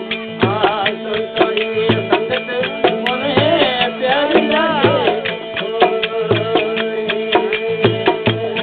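Devotional bhajan music: a hand drum keeps a steady rhythm, with a deep stroke about every second and a quarter, over sustained drone notes. A wavering melodic line glides over it around the middle.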